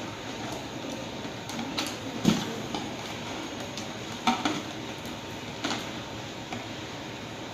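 Scattered light clicks and metallic taps from hands working wires and tools at a circuit breaker on a wiring board, about four distinct knocks over a steady background noise.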